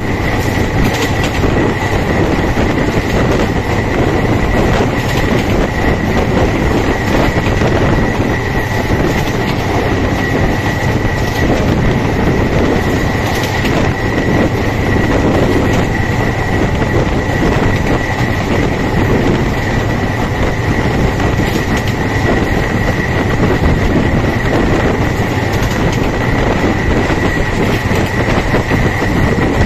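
Bangladesh Railway passenger train running at speed, heard from an open coach doorway: a steady loud rumble of wheels on rails, with a constant high-pitched tone over it.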